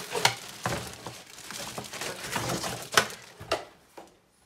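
Clear plastic wrapping crinkling and rustling as it is handled, with a few sharper crackles; it dies down near the end.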